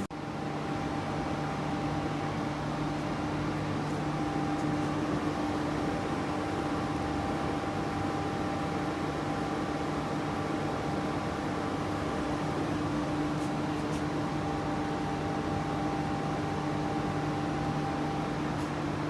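1984 AIDA NC1 150-ton mechanical press running idle: a steady motor hum with no press strokes.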